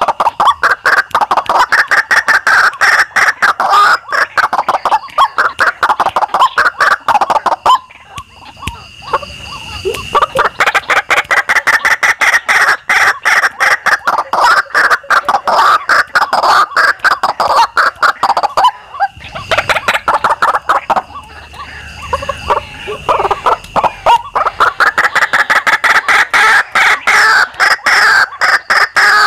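White-breasted waterhens (ruak-ruak) calling: a loud, rapid run of harsh repeated notes, the lure call used to draw the birds to a snare. It breaks off twice, about eight and nineteen seconds in, before starting again, with a thin steady high tone behind.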